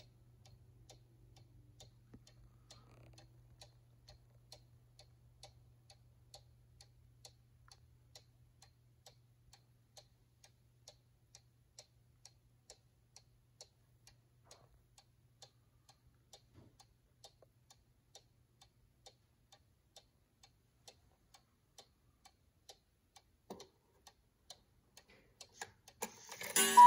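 Mechanical cuckoo clock ticking steadily and softly. Near the end, a click and then a louder rush of clockwork noise as the minute hand is turned by hand and the clock's strike mechanism starts to run.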